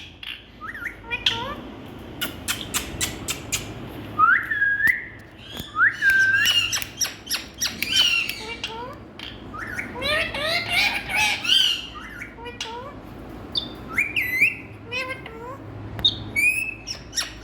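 Indian ringneck parrots squawking and chattering: a busy run of short sharp calls and clicks, with a few longer calls that swoop up and down in pitch.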